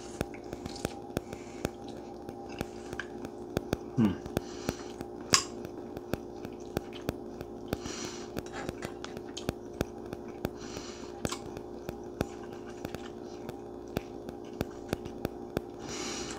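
Ramen noodles being eaten off a fork: a few short slurps with air drawn in and chewing, with light clicks of the fork and one sharp clink about five seconds in, over a steady hum.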